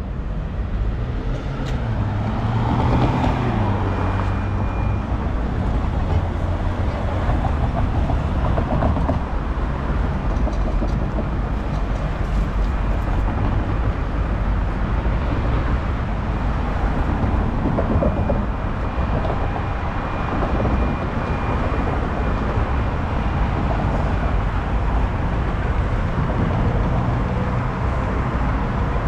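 Street traffic: motor vehicle engines with a steady low rumble, one engine's pitch rising and falling a couple of seconds in. A thin high whine comes in briefly twice.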